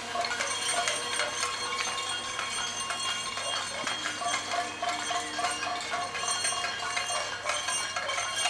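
Many people clapping outdoors, a dense irregular patter of claps with some ringing tones, such as bells or struck pans, mixed in.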